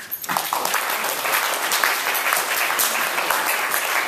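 Audience applauding, breaking out just after the start and continuing steadily as a dense patter of claps.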